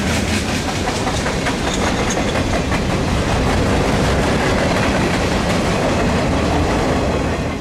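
Freight train cars rolling past: a steady rumble of steel wheels on rail with clicks over the rail joints.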